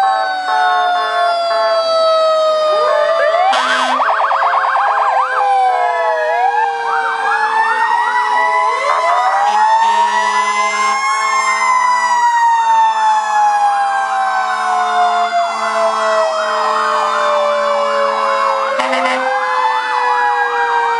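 Several fire truck sirens sounding at once, overlapping slow rising and falling wails with fast repeated yelps, over a few long steady tones.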